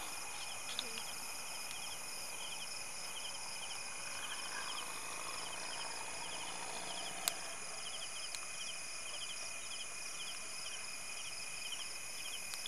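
Night insect chorus: crickets chirping in a regular repeating rhythm over a continuous high trill, with one sharp click about seven seconds in.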